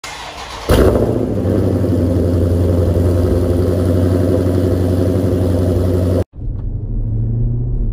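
Jeep Grand Cherokee SRT's 6.4-litre HEMI V8 starting up through its dual exhaust: it catches with a sudden jump in loudness under a second in, then idles steadily. The sound cuts off abruptly just after six seconds, and a quieter, steady engine hum follows.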